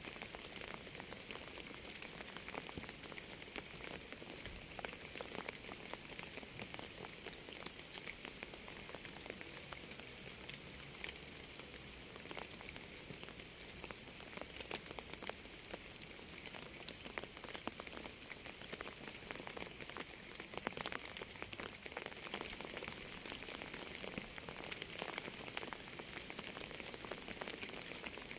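Steady rainfall: a continuous hiss with many separate drops ticking through it, brightest in the upper register, and no music.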